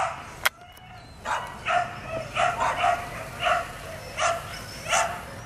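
Silken windhound puppy barking repeatedly, about ten short barks and yips in a loose run. A sharp click comes about half a second in.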